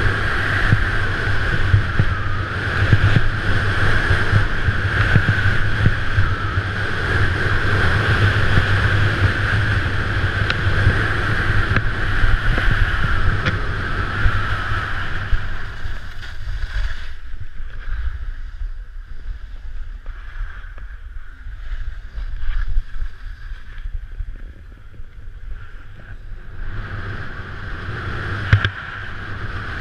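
Wind rushing over a GoPro's microphone as a skier runs downhill, with the hiss of skis sliding on packed snow. The rush eases off for several seconds past the middle, then picks up again near the end.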